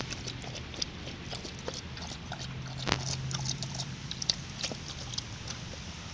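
A dog lapping water from a collapsible fabric bowl: a run of quick, irregular wet clicks, with a sharper one about three seconds in.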